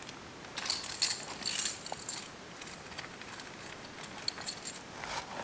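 Small hard objects jingling and clattering as they are handled, in a burst over the first couple of seconds and again briefly near the end, over the steady hiss of heavy rain.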